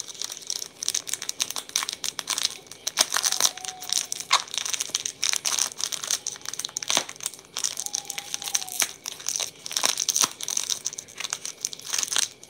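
Thin plastic snack wrapper crinkling and crackling in the hands as its crimped seal is pulled and worked open, a dense run of sharp crackles.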